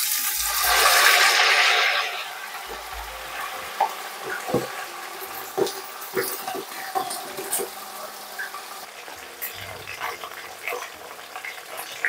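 Whole marinated chicken lowered into hot melted butter in an aluminium pot: a loud burst of sizzling that settles after about two seconds into steady frying, with scattered pops and crackles.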